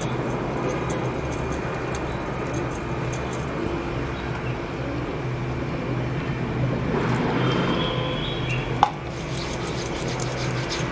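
Steady background hum and street traffic noise, with one brief sharp click about nine seconds in.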